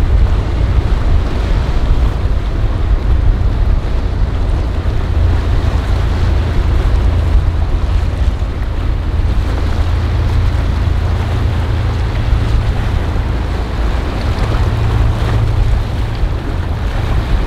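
Steady wind rumble on the microphone over the wash of choppy water and the engines and wake of a motor yacht cruising past.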